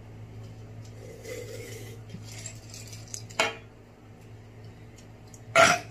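Plates and utensils clinking and shifting at a table, with one sharp knock about three and a half seconds in. A short, loud, noisy burst comes just before the end.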